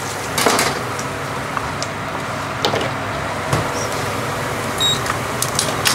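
Chopped onions sizzling softly in oil in a large stainless steel pot, over a steady mechanical hum, with a metal slotted spoon knocking against the pot a few times. A short beep sounds near the end.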